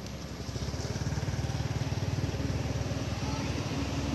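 A small engine running steadily with a fast, even beat, getting a little louder about half a second in.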